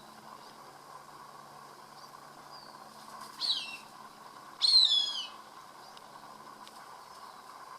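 Cooper's hawk giving two high, downslurred squealing calls, the second longer and louder.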